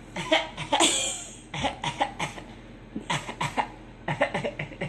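A small child coughing on purpose, imitating an adult's cough: a cough near the start, a longer one about a second in, then several runs of short, quick coughs.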